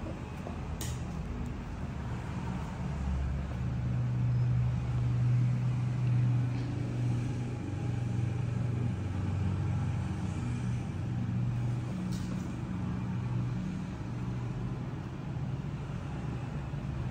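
Steady low rumble that swells and eases slowly, with a couple of faint light clicks.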